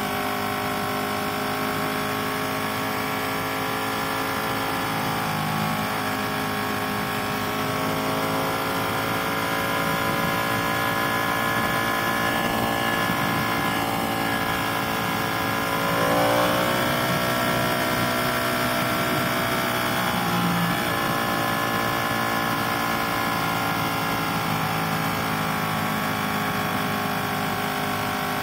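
Ducati sport motorcycle's engine running steadily under way, with wind rush over the helmet. About sixteen seconds in, the engine pitch jumps up sharply and then holds at the higher note.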